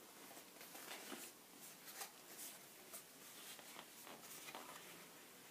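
Near silence with faint, scattered rustles and soft taps of a stiff card packaging sleeve being handled and unfolded.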